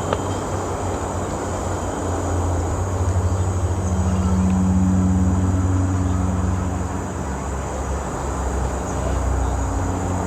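Road traffic hum with a motor vehicle's engine droning low. It grows louder for a few seconds about midway, then eases off.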